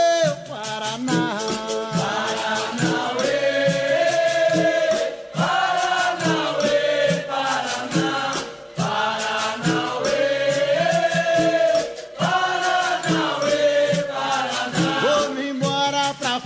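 Capoeira song: a chorus of voices sings long held notes over a steady percussion beat.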